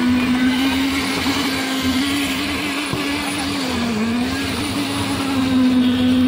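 Handheld electric concrete poker vibrator running with a steady hum, its needle in fresh concrete. The pitch dips briefly about four seconds in.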